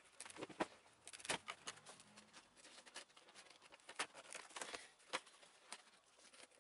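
Faint, irregular crackles, clicks and scrapes as model railway scenery is pulled up by hand: a tunnel portal and hill section break away from the layout, with loose scenery and ballast rattling.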